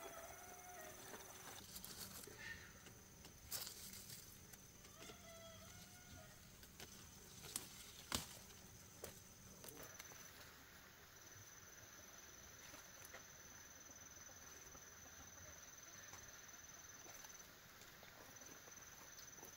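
Near silence with a few short clucks from a hen in the first five seconds or so, and a few sharp clicks, the loudest about eight seconds in.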